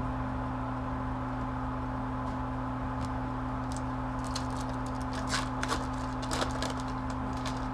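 Steady electrical hum, with a cluster of light crinkling and crackling clicks between about four and seven seconds in: foil trading-card pack wrappers being torn open and the cards handled.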